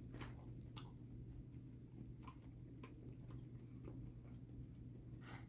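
Faint chewing with scattered soft mouth clicks while eating, over a low steady hum.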